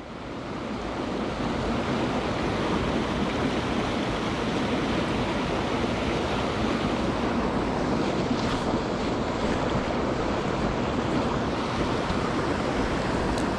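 Mountain stream rushing steadily over rocks, fading in over the first second.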